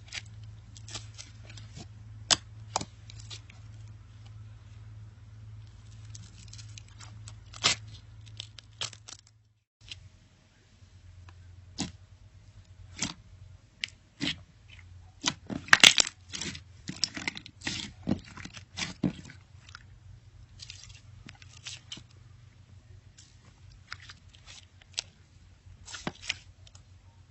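Slime being squeezed and pulled apart by hand: irregular sticky clicks, crackles and tearing pops, thickest about halfway through, over a low steady hum.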